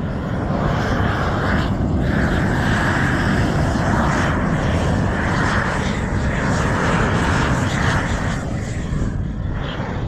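Gas roofing torch burning steadily, its flame heating Izogam bitumen roofing membrane to lay it. It is loud and wavers slowly, then cuts off sharply at the very end.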